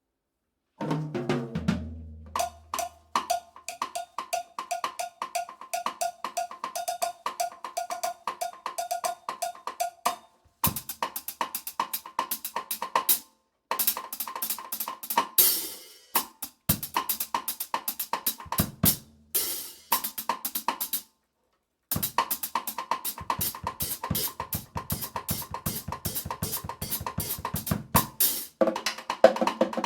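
Cowbell struck in a fast, steady rhythm, its clanking ring carrying over drum-kit strikes, with a few short breaks where the playing stops.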